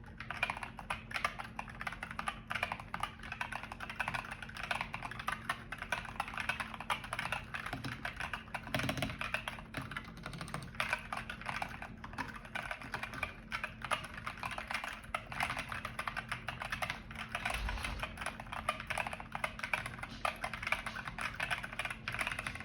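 Continuous, fast typing on a DK61e 60% mechanical keyboard with Gateron Red linear switches: a dense, irregular clatter of key presses with no pauses.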